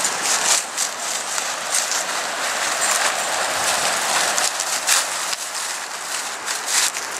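Dry fallen leaves and brush crunching and rustling underfoot as a dog and a walker move through deep leaf litter, with irregular crackles.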